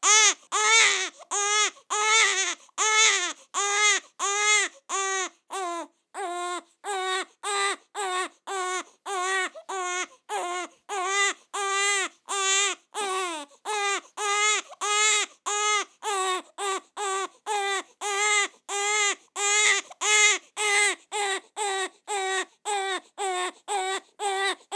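Newborn baby crying fast and hard: short, rapid wails in an even rhythm of about two a second, each cry rising and falling in pitch.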